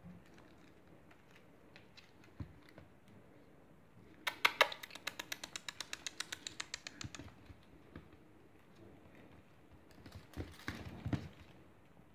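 A fast, even run of sharp clicks, about ten a second, lasting about three seconds and fading as it goes. Near the end come a few thumps and scrapes as a nine-week-old Bengal kitten pounces and swats on a laminate floor.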